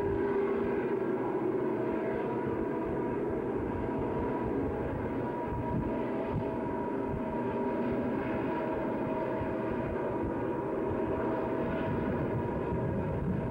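Southern Pacific diesel locomotives, with helpers, working hard up the grade, heard from afar as a steady drone with several held tones.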